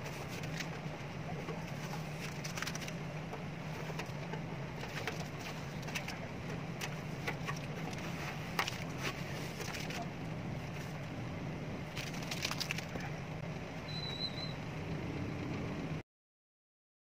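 Masking tape and paper being peeled off a freshly airbrushed motorcycle fuel tank: scattered crinkles and ticks over a steady low hum. The sound cuts out abruptly about a second before the end.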